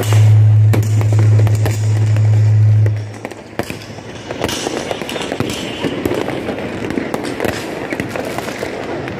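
Fireworks bursting and crackling overhead, with many sharp pops and bangs. A loud, low, steady hum sounds for about the first three seconds, then stops.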